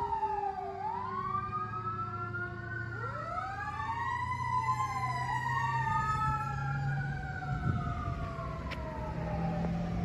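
Fire engine's siren wailing in slow rising and falling sweeps as the engine drives away, with a low engine rumble underneath.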